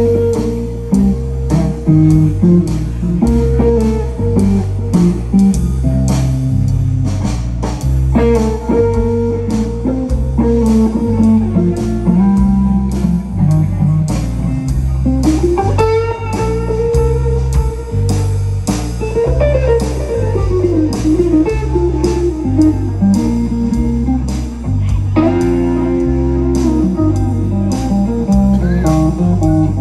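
A live blues band plays an instrumental passage: an electric guitar lead with bent, sliding notes over electric bass and drum kit.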